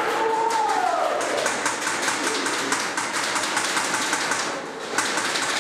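Airsoft guns firing: a fast rattle of sharp clicks, with one louder crack about five seconds in.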